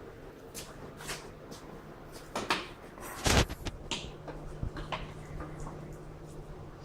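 Tools and objects being handled and shuffled while someone rummages for a tool: scattered clicks, clinks and knocks, with one louder thump a little past three seconds in, over a faint steady low hum.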